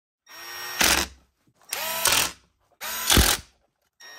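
A power drill run in three short bursts about a second apart, each a rising whine that ends in a louder rattle.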